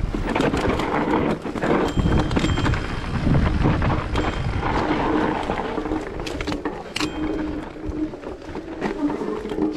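Electric mountain bike ridden down a rough, rocky trail: tyre noise on stones, wind on the helmet camera and a run of sharp rattling knocks, over a steady hum.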